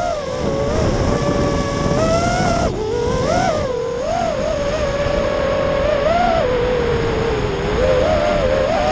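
FPV quadcopter's brushless motors and propellers whining, the pitch swelling and dipping every second or so with throttle changes, over a steady rushing noise.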